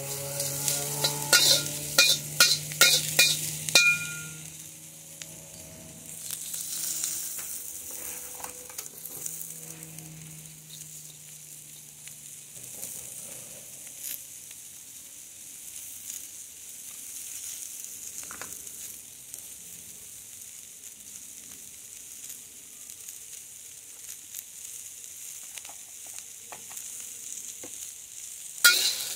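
Vegetables sizzling in a hot steel wok, with a metal spatula clanking and scraping against the wok in quick strokes for the first four seconds and again near the end. In between there is a steady sizzle.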